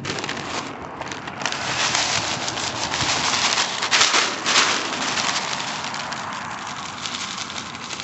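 Birdseed pouring from a bag onto gravel: a steady hiss made of many tiny ticks of falling grains, strongest about halfway through.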